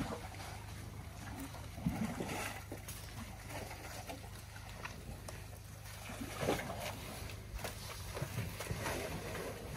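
African elephants moving and wallowing in thick wet mud: irregular squelching and splashing, loudest about two seconds in and again a little past six seconds.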